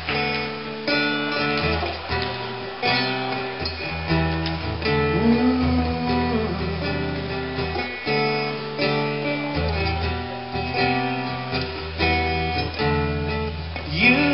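Acoustic guitar strumming chords, a new strum about every second: the instrumental introduction of a song before the vocals come in.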